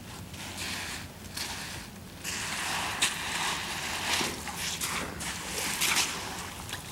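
Footsteps of two people crunching on wet creek-bed gravel at an uneven walking pace. The steps become denser and louder from about two seconds in.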